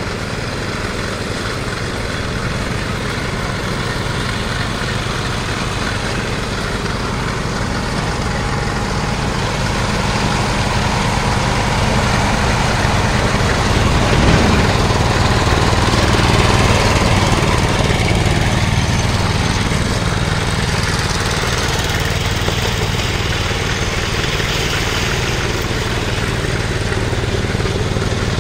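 Ride-on concrete power trowel's engine running steadily as the machine smooths a fresh concrete slab. It grows louder about halfway through as the trowel passes close by, then eases off a little.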